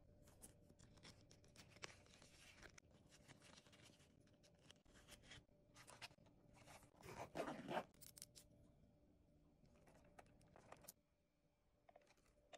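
Light tapping, scratching and crinkling as fingers handle a small plastic zip pouch and a holographic vinyl Real Littles mini backpack, with a short zipper pull on the mini backpack about seven seconds in, the loudest sound.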